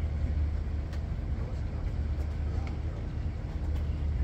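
Steady low outdoor rumble with faint voices in the background.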